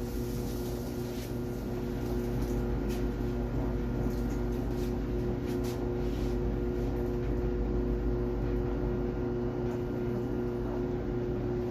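Samsung DV42 electric clothes dryer running a normal cycle: a steady hum from the drum motor with the drum turning on its newly replaced idler pulley.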